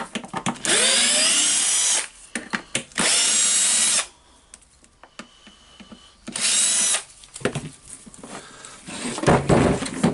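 Cordless drill-driver whining up in three short runs as it backs out the screws holding the handle of a Hilti TE 1000-AVR demolition hammer, with small clicks between runs. Near the end, scraping and a heavy knock as the big hammer is turned over.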